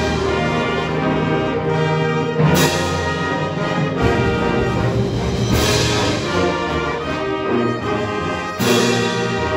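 Concert band playing live, brass to the fore: sustained chords, with a bright accent roughly every three seconds.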